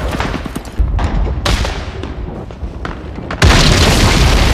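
Battle sound effects: booming explosions, one about a second in, another half a second later, and a louder, longer blast near the end.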